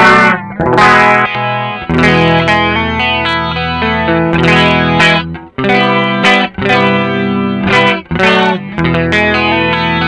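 Electric guitar strumming clean chords through a Nux MG-400 multi-effects processor, its chorus effect switched on. The chords are struck roughly every second or two and left to ring.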